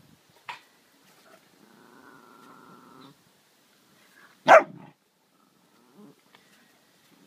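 A dog squaring up to a cat: a short sharp sound near the start, a growl lasting about a second and a half, then one loud bark about two thirds of the way through.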